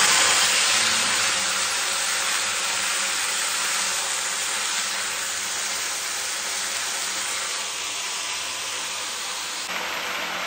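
Ginger-garlic paste sizzling in hot oil in a frying pan: a loud, even hiss that is strongest at the start and slowly eases off as the paste fries.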